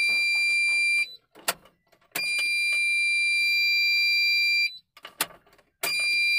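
A car's dashboard warning buzzer sounds a steady high electronic tone each time the ignition key is switched on, and it cuts off when the key is switched off: the ignition is being cycled on and off. One tone ends about a second in, a second lasts about two and a half seconds, and a third begins near the end, with a short click from the key switch in each gap.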